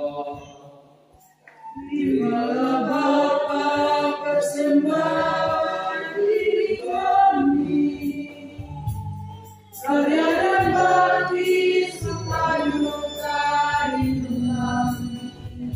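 Church choir of mixed voices singing a hymn to electronic keyboard accompaniment. The singing begins about two seconds in and pauses briefly between phrases.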